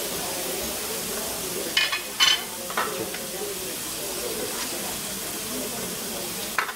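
Meat searing in a frying pan, a steady sizzle, with a few short sharp clicks about two seconds in and again near the end.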